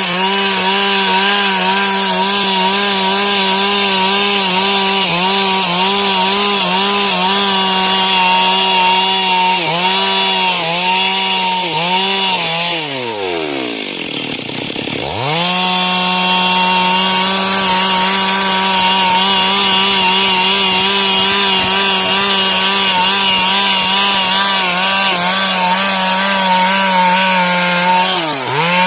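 Stihl MS 382 two-stroke chainsaw running at full throttle, cutting lengthwise through dry wood, its pitch sagging briefly under load. About halfway through, the throttle is let off, the engine drops toward idle, then revs back up into the cut. There is another short dip near the end.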